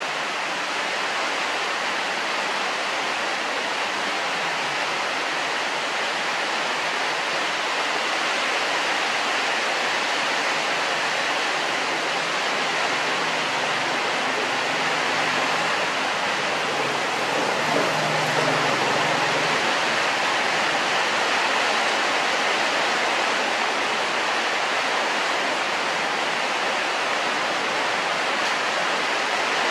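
Steady, even rushing hiss of noise with no rhythm or break, strongest in the middle and upper range.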